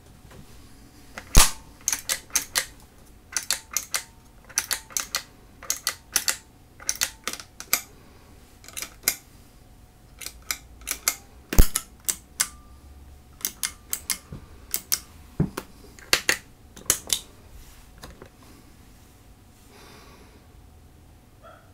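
Guitar pedal footswitches clicking, many in quick pairs or small clusters, with a few heavier knocks among them; the clicks stop a few seconds before the end.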